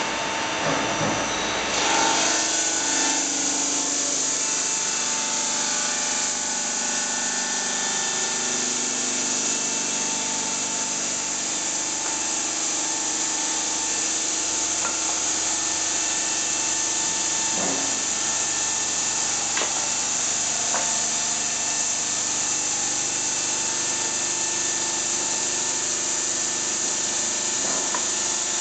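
Water-cooled diamond blade of a stone bridge saw cutting through a stone slab: a steady, loud grinding hiss over a constant hum. The high hiss grows stronger about two seconds in.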